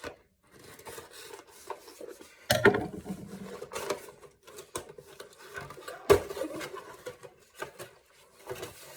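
Rustling and rubbing as fishing tackle and its packaging are handled, with scattered clicks and two sharper knocks, about two and a half and six seconds in.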